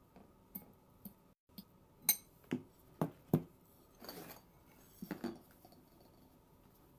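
A metal fork clinking against a glass bowl, with a few sharp clinks about two to three and a half seconds in, then softer knocks and rustling as dishes are moved on the table.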